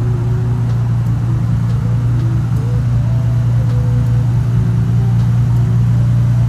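Nissan Skyline GT-R R32's twin-turbo RB26 inline-six running steadily at a constant, fast idle, with a strong, unchanging hum.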